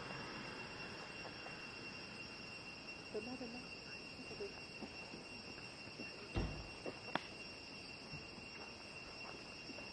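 Steady drone of forest insects, holding two high tones. About six seconds in, a single thump as the pickup's door shuts, then a sharp click; faint voices a few seconds in.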